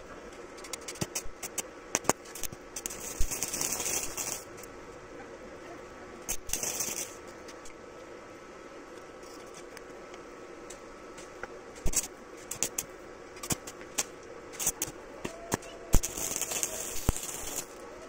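Stick welding arc from an iBELL 220A IGBT inverter welder, with the electrode being struck and tapped on the steel bracket. Sharp crackles and clicks come throughout, and the arc catches and sputters in three hissing bursts: about a second long a few seconds in, briefly in the middle, and for about two seconds near the end.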